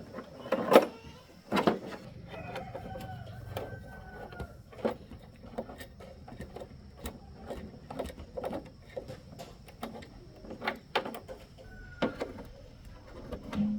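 A rooster crowing once, about two seconds in, over a string of sharp metallic clicks and knocks from hand work on a motorcycle.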